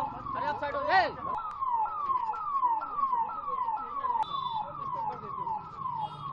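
Electronic emergency siren sounding a fast repeating wail, each sweep falling in pitch, about three a second. A brief voice cuts in about a second in.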